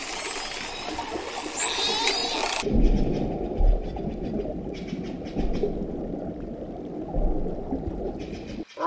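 Dolphins whistling and chirping over splashing water, with short rising and wavering whistles. About three seconds in this cuts off and gives way to a low, muffled rumble with a few deep thumps.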